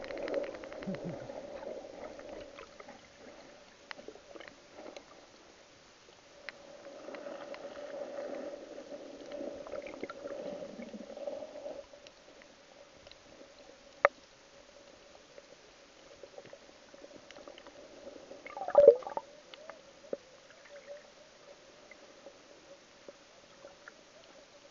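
Muffled underwater sound picked up by a submerged camera: water swishing and gurgling around it in stretches, over a faint steady hum. A sharp click comes about halfway through, and a louder knock about three quarters of the way in.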